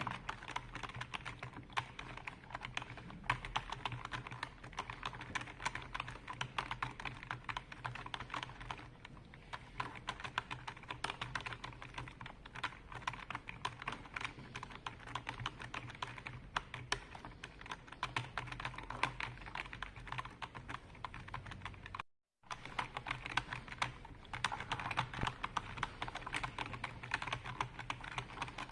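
Computer keyboard being typed on rapidly and continuously, a dense stream of key clicks, broken by a split-second gap of silence about two-thirds of the way through.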